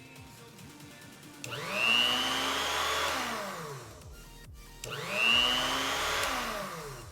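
Motor and cutter wheel of an Ilco Mini Mite 008A key duplicating machine, switched on and off twice. Each time it spins up quickly, runs for about two seconds, then winds down with a falling pitch.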